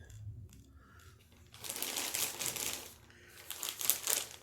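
Rapid clicking and rustling of small objects being handled, starting about a second and a half in and coming again in a shorter run near the end.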